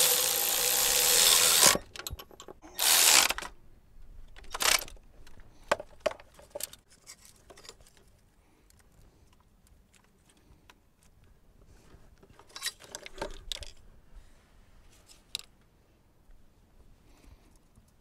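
Cordless power tool on a socket extension running down the 10 mm thermostat-housing nuts, in a burst that stops about two seconds in and a second shorter burst just after. Then a brief third burst, followed by faint clicks and rattles of parts and connectors being handled.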